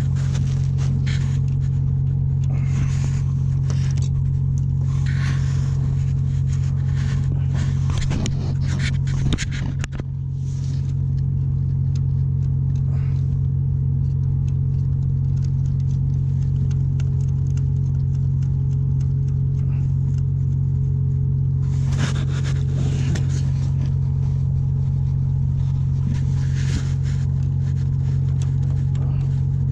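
Steady low drone of a ship's engine machinery, with scrapes and taps from hands working on the fittings of a whip antenna's base. One sharper knock comes about nine seconds in.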